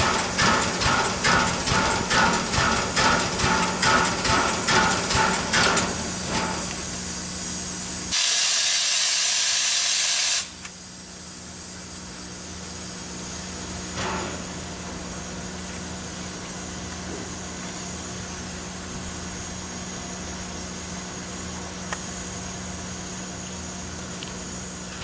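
Norfolk and Western 611, a J-class 4-8-4 steam locomotive, beating out regular exhaust chuffs at about two to three a second for the first six seconds. About eight seconds in comes a loud burst of steam hiss lasting a couple of seconds, which cuts off sharply. After that the engine stands with a steady hiss and a constant low hum.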